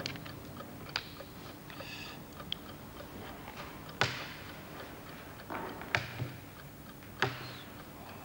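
Sharp clacks of wooden chess pieces being set down on a board: four spread-out strokes, the loudest about four seconds in.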